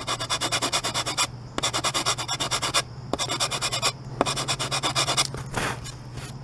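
Hand sanding with medium-grit sandpaper wrapped on a wooden block: quick back-and-forth scratching strokes over dried wood putty on particle board, in four bouts with short pauses between. A steady low hum runs underneath.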